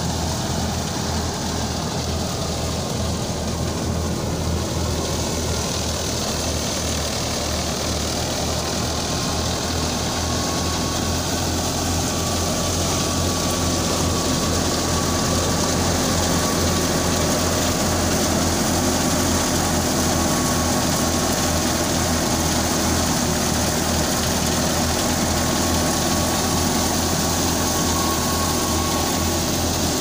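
Tractor-driven wheat thresher running steadily under load as sheaves are fed in. The tractor engine and the belt-driven threshing machinery make one continuous mechanical noise over a low hum, and a faint steady whine comes in about a third of the way through.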